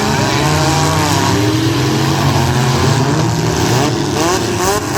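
Several demolition derby street stock car engines running and revving together, their overlapping pitches rising and falling, with a few quick revs near the end.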